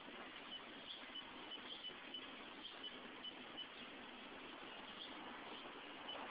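Faint short high chirps repeating every half second or so over a steady hiss, the calls of a small animal.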